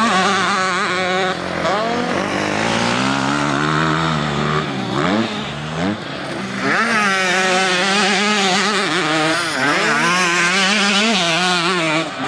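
Motocross dirt bike engines revving up and down, their pitch rising and falling as the bikes go round the track. The sound dips about five seconds in, then another bike comes up loud a second or so later.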